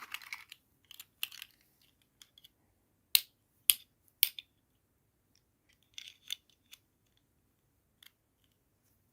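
Toy packaging being unboxed by hand: a short rustle, then scattered sharp clicks or snips. The loudest are three, about half a second apart, a little after three seconds in; a few lighter ones cluster around six seconds.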